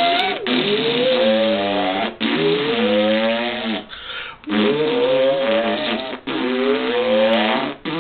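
A pitched, noisy whooping sound effect for a time machine starting up, rising in pitch about five times in a row, each rise lasting about a second and a half.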